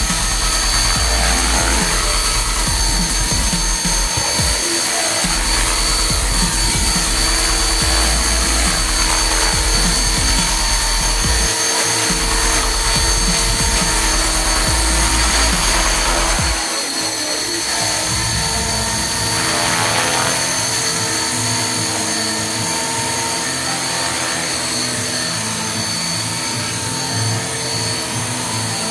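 Titan T-Rex 450 electric RC helicopter hovering, its motor and rotors giving a steady high whine. A low rumble under it stops about 17 seconds in.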